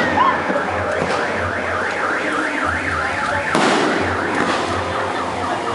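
A car alarm sounding with a warbling tone that rises and falls about four times a second, amid aerial firework shells bursting; a loud crackling burst comes a little over halfway through, after which the warble fades.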